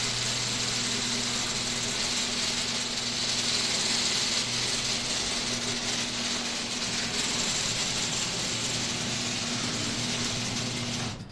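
Electric garage door opener running as a sectional garage door rolls open along its steel tracks: a steady motor hum under a continuous mechanical rattle. It starts and stops abruptly.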